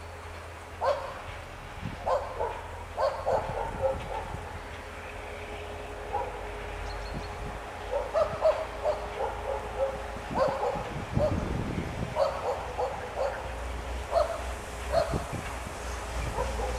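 A dog barking repeatedly in short, irregular bursts over the low, steady rumble of a departing passenger train.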